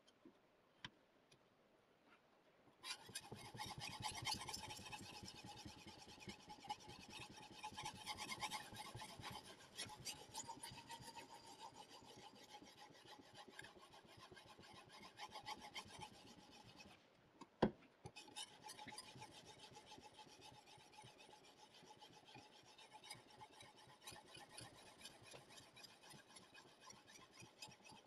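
CBN sharpening stone on the guide rod of a KosiM guided-angle sharpener, stroked back and forth along the edge of a VG-10 steel knife blade: continuous rasping strokes starting about three seconds in. A few light clicks come before the strokes start, and there is a short pause with a single sharp click just past the middle before the strokes resume.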